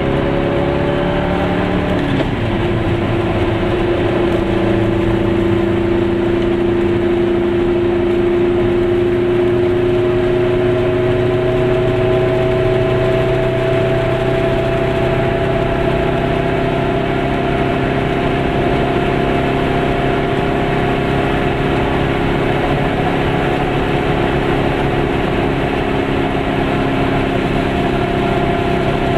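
Car engine and tyre-on-road noise heard from inside the cabin while driving. The engine note drops sharply about two seconds in, then climbs slowly and steadily as the car gathers speed.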